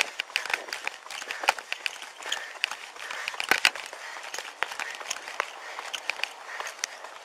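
Running footsteps and the rattle and knocking of gear picked up by a police body camera worn by the runner, with irregular rubbing and clicks on the microphone; the loudest knock comes about three and a half seconds in.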